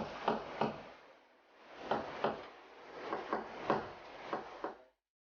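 A run of light knocks and clacks in a small room, about a dozen, in two bunches with a short lull between. The sound cuts off abruptly near the end.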